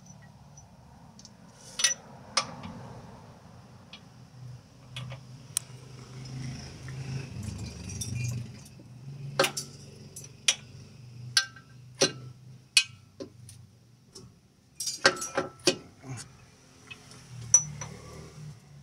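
Hand tools and metal parts clinking and tapping during suspension and steering repair work: a dozen or so sharp, irregular metallic clicks over a low background hum, with a quick cluster of them near the end.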